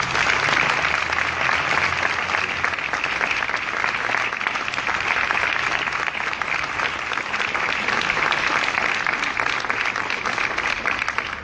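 A small crowd applauding, many hands clapping in a dense, steady patter.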